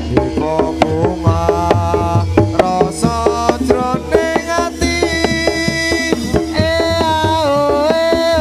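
Javanese gamelan accompaniment for a jathilan dance: hand-drum strokes and struck keyed-instrument notes in a busy rhythm. From about three seconds in, a long, sliding melody line is held over them.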